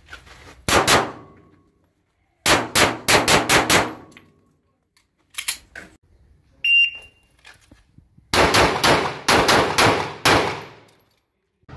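Pistol shots fired in quick strings: a pair, then a fast run of about six, then a couple more. A short high beep from a shot timer comes about two-thirds of the way through, then a final longer string of rapid shots.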